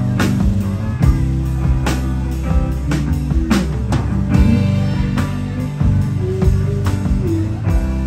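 Live rock band, with electric guitar, bass guitar and drum kit, playing an instrumental passage with steady drum and cymbal hits and a few sliding guitar notes about halfway through.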